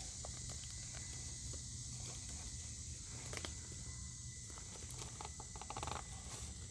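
Faint scattered clicks and rustles over a low steady hum: small electric RC crawler trucks creeping slowly over sticks and dirt.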